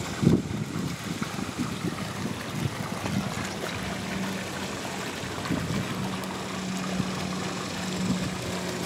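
Steady trickling, running water, with a faint low hum joining from about three seconds in and a few light bumps in the first second.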